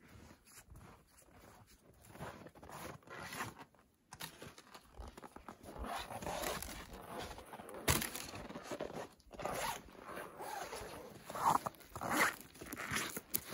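Quiet at first; from about six seconds in, irregular rasping and crunching as boots move on packed snow and the canvas door of a wall tent is unfastened and handled, with a sharp click about eight seconds in.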